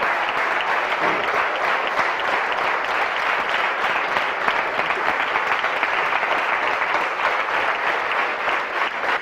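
An audience applauding, many hands clapping steadily with no break.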